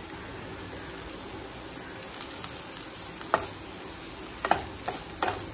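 Stir-fried cabbage with carrot, peas and grated coconut sizzling softly in a non-stick kadai. In the second half a spatula tosses and scrapes it in a few quick strokes.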